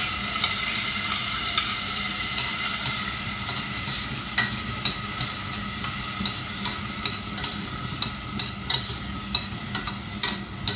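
Raw rice sizzling as it is stir-fried in oil with sliced ginger, with repeated clicks and scrapes of the stirring utensil against the pan.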